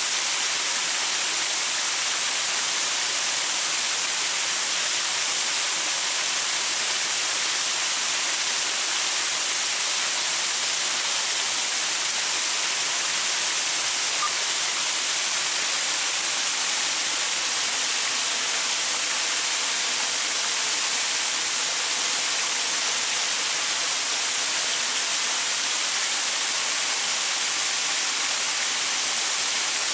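Small waterfall splashing onto rocks, a steady even rush with most of its sound in the hiss range.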